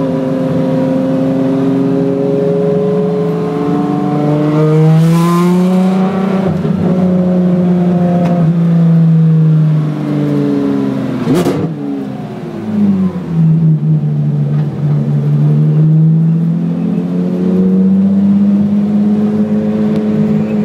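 Ferrari 599XX's V12 engine heard from inside the car, its note rising and falling with the throttle. About halfway through there is a sharp crack, and the engine stutters briefly as the revs drop. It then climbs slowly and steadily again.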